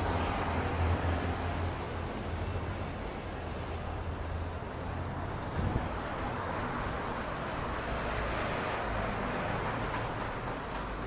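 City street traffic: engines and tyres of passing cars and vans, steady, with one vehicle passing close and louder about nine seconds in.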